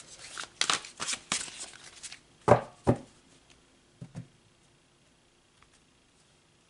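A deck of oracle cards being shuffled by hand: a quick patter of card flicks for about two seconds. Then come two dull knocks as the cards are set down on the table, a couple of softer taps about four seconds in, and the sound fades to faint rustling.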